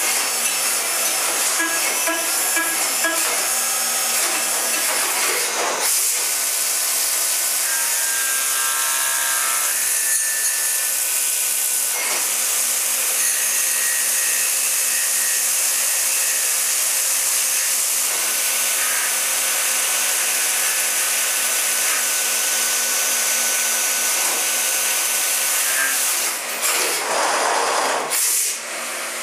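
Brother M140X1 compact 5-axis machining center cutting a metal part under flood coolant: a steady loud hiss of coolant spray and chips with a spindle and cutting whine on top. The whine changes pitch and the sound shifts abruptly several times as the operation changes, including turning with the part spun on the table.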